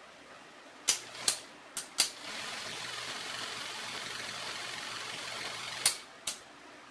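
Old 8mm film projector switched on after a few clicks at its controls. Its motor and plastic cooling fan run with a steady whir and faint low hum for about three and a half seconds, then two more clicks and it shuts off.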